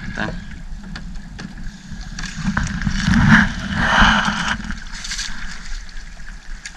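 A drift gill net being hauled in by hand over the wooden side of a fishing boat, with water splashing and running off the net. The splashing is loudest around three to four seconds in, over a steady low hum.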